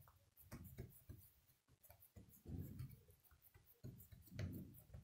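Faint soft pats and rubs of hands pressing a ball of yeast dough flat on a cloth-covered table, with a few light ticks.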